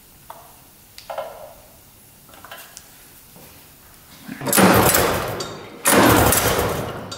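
Twin-cylinder two-stroke engine turned over by its pull-start rope with the spark plugs out, two strong pulls about a second and a half apart, each a sudden rush that fades away, to spread oil put into the cylinders. Before them, a few small clicks and squirts from the oil bottle.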